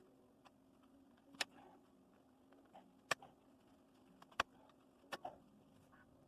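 Four or five sharp knocks and clicks, spaced a second or so apart, from working on a Maglite flashlight to free a battery stuck inside it.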